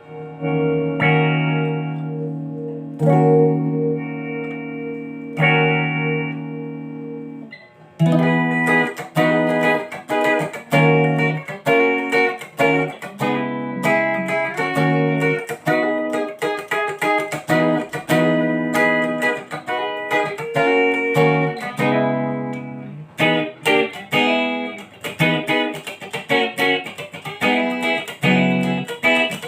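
Fernandes HSS electric guitar with a Floyd Rose bridge being played: a few chords strummed and left to ring, then from about eight seconds in a busier passage of quickly picked notes and chords.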